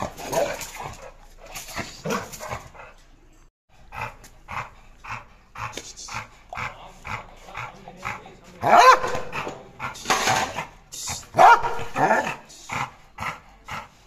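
Red-nose pit bull barking repeatedly, short barks about two a second, with a few louder barks in the second half.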